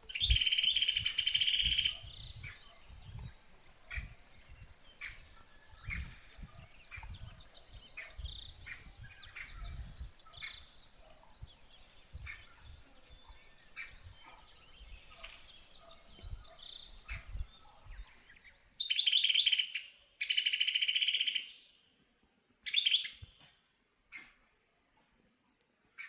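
A bird calls in rapid trilled bursts about two seconds long, once at the start and three times near the end. Faint rustling and low thumps sound in between.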